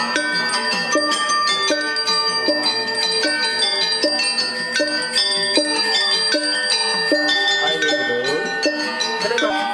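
A Balinese priest's brass handbell (genta) rings continuously with a bright, held high tone. Under it, gamelan metallophones play struck metal notes in a steady repeating pattern.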